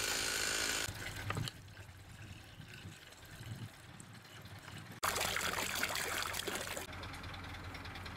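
Water poured from a plastic bottle into a stainless steel cooking pot, with a louder burst of pouring and splashing about five seconds in that lasts about two seconds. A chainsaw runs in the first second and cuts off.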